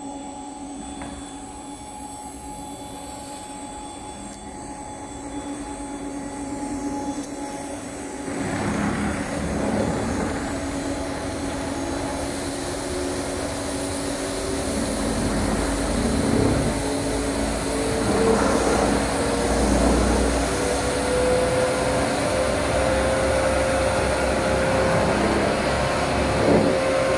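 EMC Finebrush brushing machine running with a steady motor hum. About eight seconds in, a louder rushing noise starts as its rotating brush heads work a kitchen door fed through it, and a slowly rising whine comes in over the last third.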